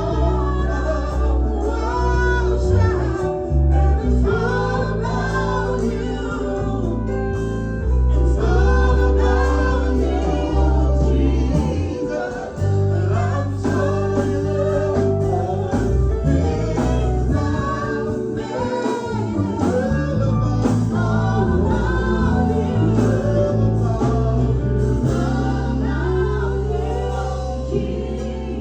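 Live gospel worship music: singers over a band with sustained bass and a steady beat.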